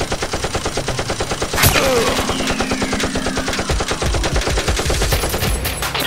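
Dubbed-in automatic gunfire sound effect: a fast, steady string of shots, with one sharper crack and a short falling whine about a second and a half in.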